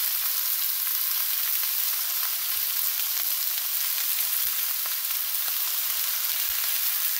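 Beef steaks sizzling in a hot frying pan: a steady hiss with scattered small pops and crackles as the meat sears.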